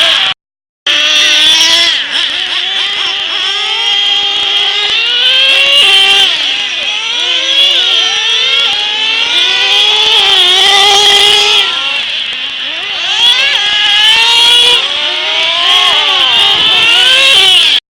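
Several radio-controlled off-road race cars running together, their small high-revving motors whining and repeatedly rising and falling in pitch as they accelerate and brake. The sound drops out briefly under a second in.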